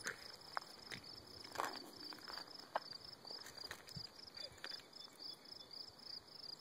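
Crickets chirping in a steady run of high, evenly spaced pulses, several a second. Scattered soft clicks and rustles of steps on gravel and grass sound faintly underneath.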